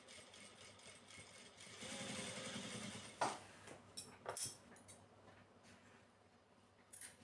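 Sewing machine running in a short burst of stitching for about a second, followed by a sharp click and a few lighter clicks and knocks.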